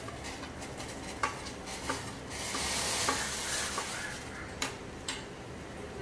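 Water boiling in a small steel saucepan while spices are scraped in from a plate with a steel spoon, which clicks against the plate and pot rim a few times. About two seconds in, the hiss swells for a couple of seconds as the spices hit the boiling water and it bubbles up.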